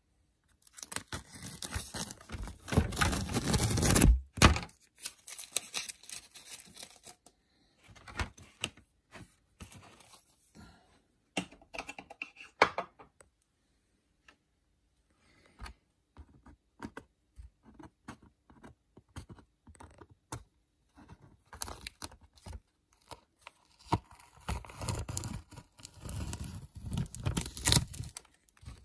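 Masking tape being peeled off a painted gaming board, in noisy bursts of ripping and crinkling, with scattered light clicks and taps of handling between. The main bursts come near the start and again near the end.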